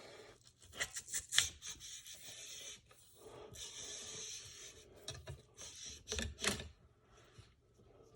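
Cleaning rod scrubbing back and forth through the bore of a CVA Wolf muzzleloader barrel: about three long rasping strokes with a few sharp knocks. The loudest knock comes about a second and a half in.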